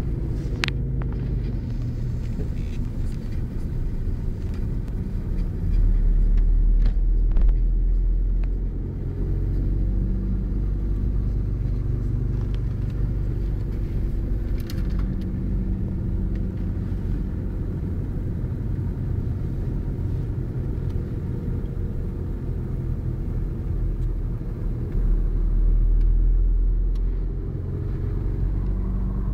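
Car engine and road noise heard from inside the cabin while driving: a steady low rumble that swells louder twice for a few seconds at a time, with a few faint clicks.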